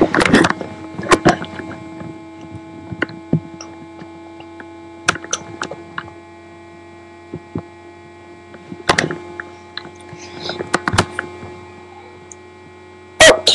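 A steady electrical hum, with scattered soft clicks and knocks, the loudest about a second in and around nine and eleven seconds.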